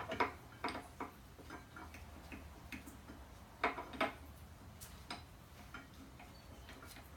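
Irregular light clicks and taps of metal brake pads and caliper parts being worked into the brake caliper of a 2017 Indian Chieftain motorcycle. The loudest clicks come right at the start and again near the middle, over a faint steady low hum.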